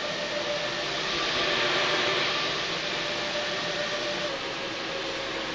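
Cooling fans of a Fossibot F3600 portable power station running hard under a load of about 1300 watts: a steady rushing whoosh with a faint whine in it, swelling a little a second or two in.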